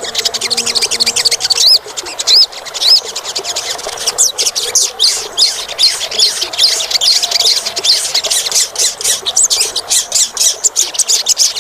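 Olive-backed sunbird (Cinnyris jugularis) singing a rapid, high-pitched twittering song, with a few loud looping notes about two seconds in.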